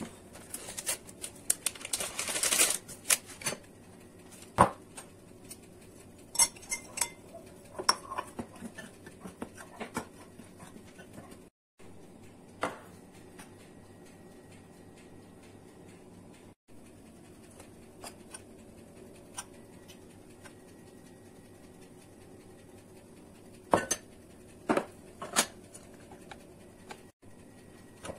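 Metal spoon scraping and clinking against bowls as flour is scooped and weighed, with scattered knocks of glass and china dishes set down on the counter. There is a longer run of scraping near the start, and a few sharp knocks close together near the end.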